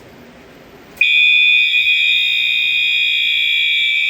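Fire alarm sounder comes on about a second in and sounds a loud, continuous high-pitched tone with no breaks: the system going into alarm after a manual pull station is pulled.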